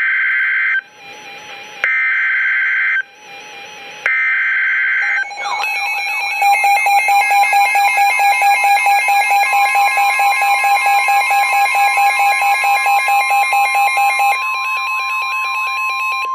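NOAA Weather Radio Emergency Alert System tones. Three buzzy bursts of digital SAME header data, each about a second long with a second's gap between them, are followed by a rapidly pulsing, warbling alarm. The steady 1050 Hz weather-radio warning tone joins about ten seconds in and continues after the pulsing alarm stops near the end.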